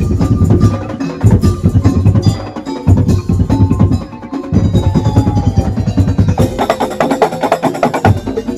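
Ul daul percussion music: a Madurese street ensemble playing a fast, dense beat of drums and wooden knocking instruments, with bell-like tones above it.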